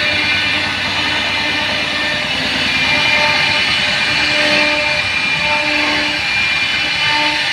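CNC router running while it carves a wooden door panel. Steady spindle noise, with short tones from the axis motors that switch pitch every second or so.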